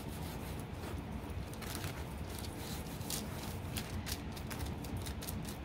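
Hands rubbing and smoothing over a sheet of wax paper laid on rolled-out air-dry clay: a steady rustle of paper with many small crinkles.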